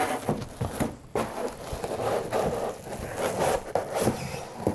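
Rigid polyiso foam insulation board being pushed and pressed into place against foil bubble insulation: irregular scraping and rustling with a few sharp clicks.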